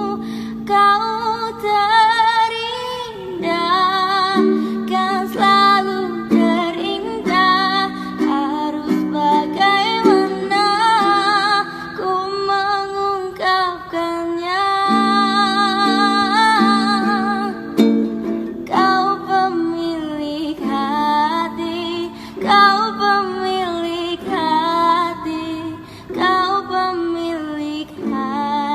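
A woman singing a melodic song with vibrato, accompanied by a plucked string instrument such as a ukulele.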